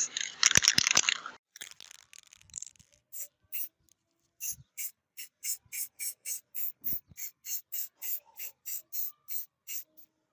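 A paintbrush stroking black paint onto a small flat metal part in short, scratchy strokes, about three a second. A short loud hiss comes first, in the first second and a half.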